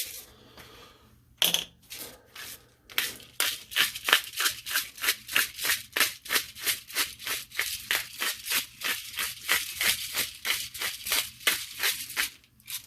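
Salt shaker shaken steadily over meat, a rapid rattling swish at about four shakes a second, after a couple of knocks at the start.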